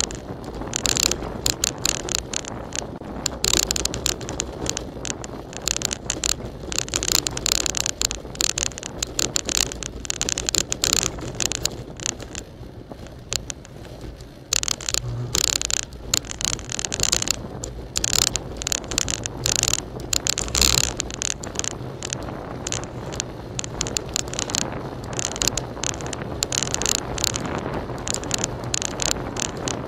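A bicycle being ridden over paving slabs and asphalt: continual irregular rattling and clicking from the bike and its mounted camera, with low wind rumble on the microphone.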